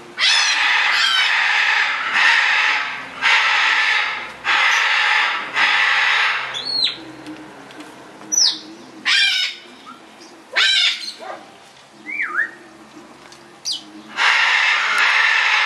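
Macaws giving loud, harsh screeches about a second long, six in quick succession, then sparser shorter calls and two more long screeches near the end, with a few brief falling whistles in between.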